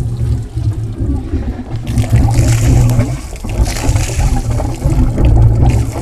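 1995 Ski Nautique's inboard engine running steadily on its first run after the Holley carburettor was repaired, with a stream of water pouring out of an outlet in the hull and splashing, loudest about two seconds in and again midway.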